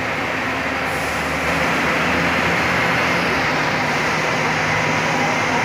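Diesel coach engines running in a bus terminal, a steady drone. It grows a little louder about a second and a half in as a double-decker coach passes close by.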